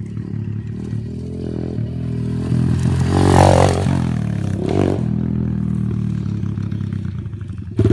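Small dirt bike engine running as the bike comes down the hill and over a small jump, loudest about three seconds in as it passes close. Near the end a much louder engine sound comes in suddenly, with a fast, even putter.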